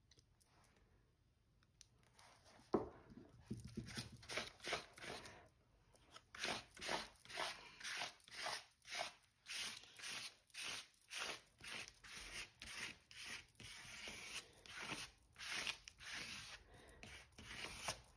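Quiet, scratchy rubbing strokes of acrylic paint being worked onto paper, about two a second, after a single knock about three seconds in.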